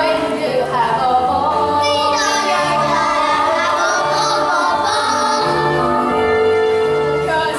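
Singing over instrumental accompaniment: a stage-musical song, with voices carrying the melody above a bass line.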